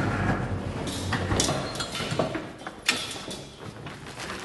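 Metal clanks and rattles of an armoured van's rear door and a loaded pallet jack. A low rumble opens it, followed by several sharp clacks, the loudest about a second and a half in and again about three seconds in.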